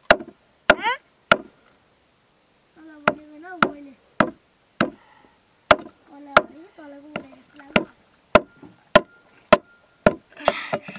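Repeated chopping with a blade on a wooden block: sharp, separate strokes at an uneven pace of roughly one to two a second.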